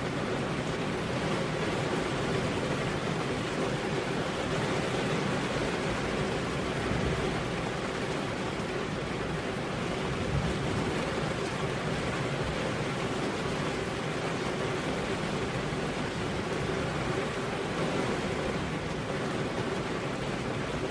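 Heavy rain falling steadily on a road, an even, unbroken rush with no thunder.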